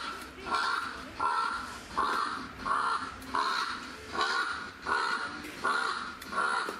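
Animatronic Phorusrhacos playing recorded bird calls: one harsh call repeated about every 0.7 s, some ten times, as an even loop.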